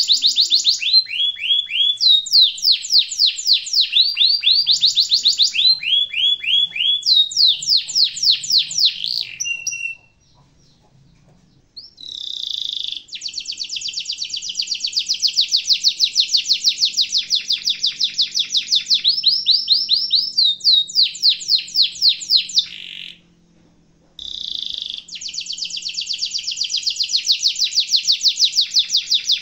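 Domestic canary singing long rolling trills: long runs of rapid repeated high notes that shift pitch from phrase to phrase. The song breaks off briefly about ten seconds in and again about twenty-three seconds in.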